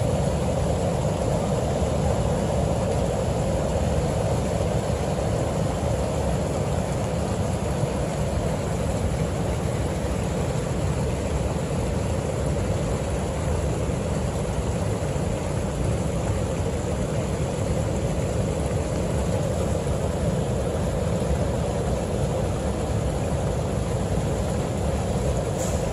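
Heavy Pacific surf at high tide: a steady roar of breaking waves and foaming water washing up the beach, with no single crash standing out.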